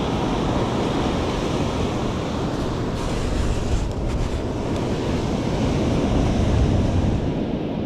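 Wind buffeting the microphone over the steady wash of surf on the beach, with a few short scrapes about halfway through.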